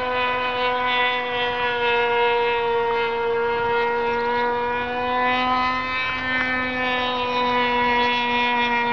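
Tower .75 two-stroke glow engine of a Tower Hobbies Uproar 60 RC plane running steadily in flight, a high, even whine whose pitch dips slightly about midway and comes back.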